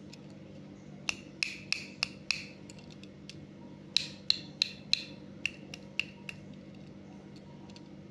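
A finger tapping the die-cast metal body of a Hot Wheels Nissan 350Z toy car, giving sharp clicks that each ring briefly. There are five quick taps about a second in, a pause, then about eight more.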